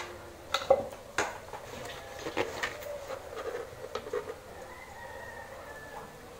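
Plastic paint buckets and containers being handled and set down, a few sharp knocks and clicks in the first three seconds, then quieter handling sounds.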